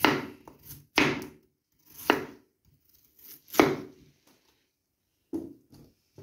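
Knife slicing a raw potato into rounds on a wooden cutting board: four sharp cuts about a second apart, then a few softer knocks near the end.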